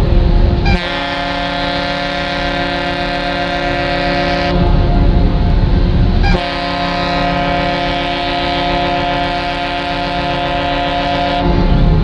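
Ship's horn of the former Regent Rainbow (SS The Emerald) sounding two long blasts, the first about four seconds and the second about five. Each blast is a steady chord of several tones, with a low rumble between the blasts.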